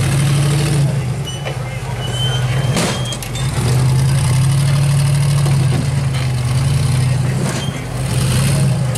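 Rock-crawler buggy's engine running under load as it climbs over boulders, the throttle opening and easing off several times. A single sharp knock about three seconds in.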